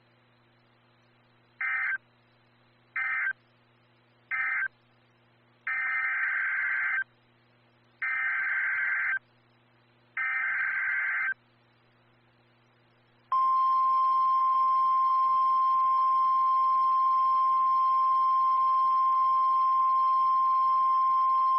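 Emergency Alert System data tones from a NOAA Weather Radio broadcast: three short digital bursts end the previous message, then three longer screeching bursts carry the next alert's header. About thirteen seconds in, a loud steady single-pitch alert tone starts and holds, the weather radio's warning alarm that comes before a voice message.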